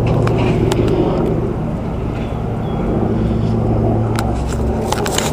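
Steady low engine drone with a deep hum under it, and a few faint clicks near the end.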